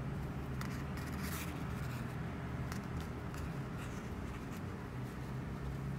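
Soft rustling and rubbing of milk cotton yarn and elastic hair cord being pulled and knotted by hand, with faint scattered ticks, over a steady low hum.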